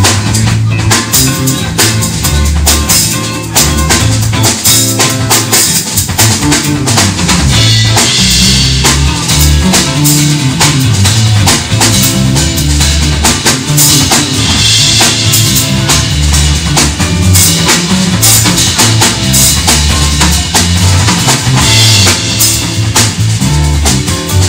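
Live band music: a drum kit with kick and snare keeps a steady beat under a moving low bass line.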